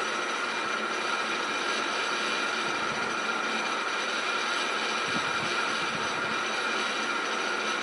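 Steady background hiss with a faint high whine running under it, and a couple of faint soft knocks.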